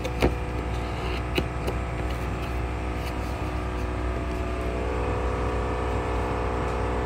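A machine running steadily, a constant hum of many even tones, with a few light clicks in the first couple of seconds.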